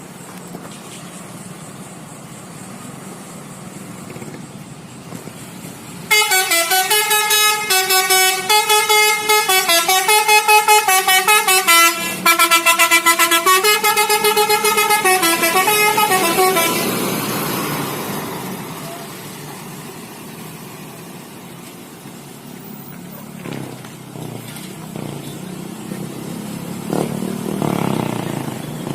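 A bus's 'telolet' multi-tone musical horn plays a rapid jingle of stepping pitches for about ten seconds. It starts suddenly about six seconds in, over steady road noise. Afterwards a broad rush of road noise swells and fades away.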